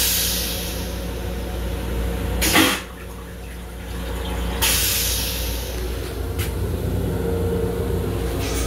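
Railcar toilet flushing: a hissing rinse spray into the stainless-steel bowl starts suddenly and fades, a short loud rush follows about two and a half seconds in, and a second spray starts about halfway through. A steady low rumble from the railcar runs underneath.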